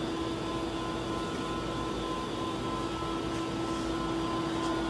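Steady mechanical hum with a constant tone, like ventilation or machinery running in a workshop.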